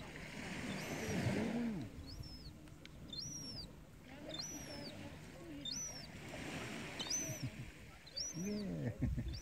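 Juvenile herring gull giving its thin, high-pitched begging call over and over, about once a second, each call rising and then dropping. It is begging from an adult herring gull.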